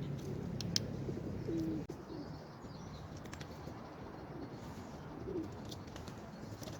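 Pigeon cooing a few short low coos, with a few faint clicks between them.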